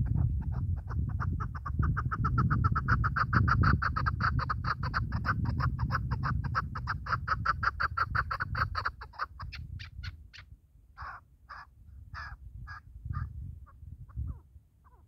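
Chukar partridge calling: a long, rapid run of repeated chuck notes that breaks up about nine seconds in into a few slower, separate calls.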